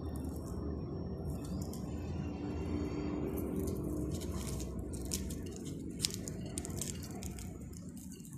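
Soft background music, with light crackling from about three seconds in as flaky baked puff pastry is pulled apart by hand, and one sharper click about six seconds in.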